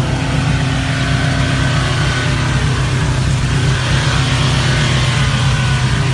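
A vehicle engine running steadily and loudly, with a faint whine above it that wavers slightly in pitch.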